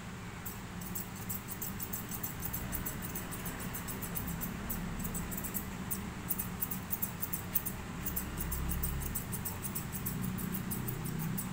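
Grooming scissors snipping a Pomeranian's fur in quick, light, repeated clicks, over a steady low hum.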